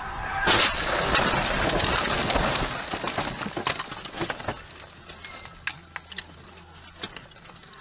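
A car ploughing off the road into dense bushes: a loud rush of branches scraping and snapping against the body and windshield starts about half a second in. After about four seconds it eases off into scattered snaps and cracks.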